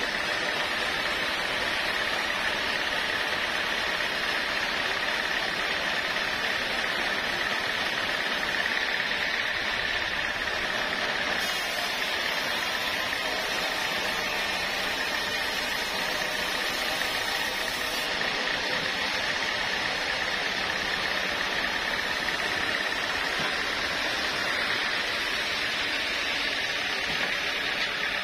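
Sawmill machinery running steadily: a continuous mechanical noise with a steady high whine through it.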